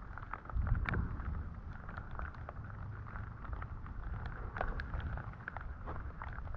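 Walking in the rain on desert ground: scattered light ticks of steps and raindrops over a steady hiss, with wind rumbling on the microphone.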